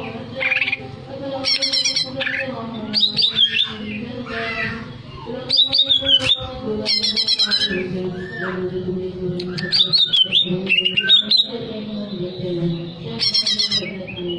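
Cucak ijo (greater green leafbird) singing loudly: bursts of quick, high, downward-sliding notes with a harsh, clicky edge, repeated every one to three seconds.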